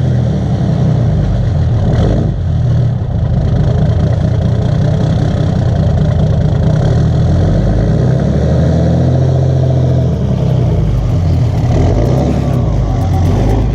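Truck engine running steadily, its note shifting slightly a couple of times.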